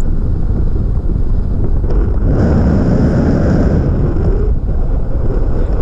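Wind buffeting the microphone of a pole-mounted camera during a tandem paraglider flight: a loud, steady low rumble that swells for about two seconds in the middle.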